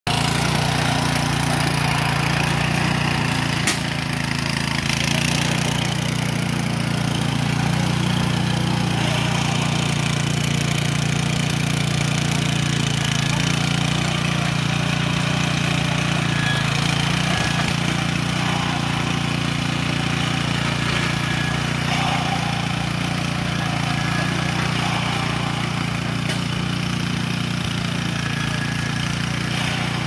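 Small petrol engine of a walk-behind garden tiller running steadily at an even pitch while the tiller works the soil.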